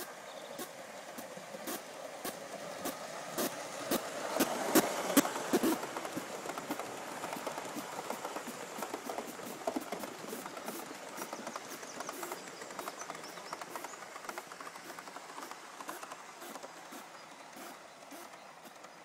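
Gauge 1 model Q1 locomotive and a long rake of model coaches running past on garden railway track: a rumble of wheels on rails with regular clicks. It is loudest about five seconds in as the locomotive goes by, then fades as the coaches roll away.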